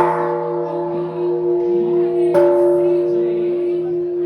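A large bell struck twice, about two and a half seconds apart, each strike ringing on in several steady overlapping tones.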